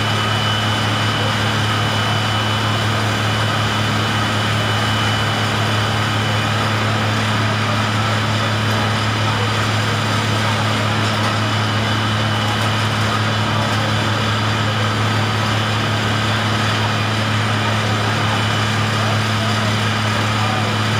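An engine running steadily at one constant speed: a low, even hum with a faint high whine above it and a hiss of noise over it.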